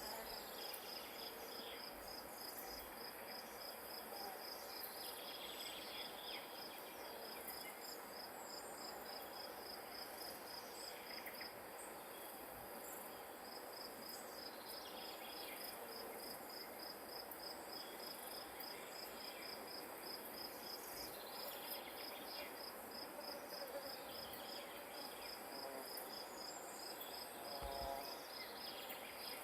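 A grass insect, a cricket or katydid, chirping in a steady high-pitched pulse of about three chirps a second, breaking off briefly twice before carrying on.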